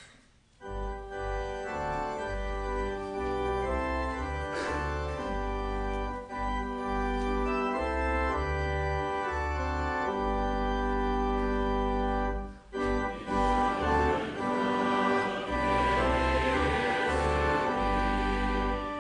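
Church organ playing sustained chords over a deep pedal bass, the introduction to a psalter hymn before the congregation sings. It starts about half a second in and breaks off briefly about two-thirds of the way through before going on.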